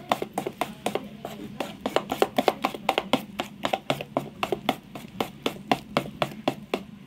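Thick besan (gram-flour) batter being beaten by hand in a steel bowl: rapid, even strokes, about five a second. The batter is being whipped to aerate it, because no baking soda or baking powder is used.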